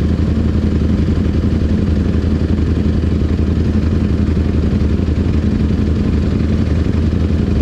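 Several sport motorcycle engines idling at a standstill, a steady low drone with no revving.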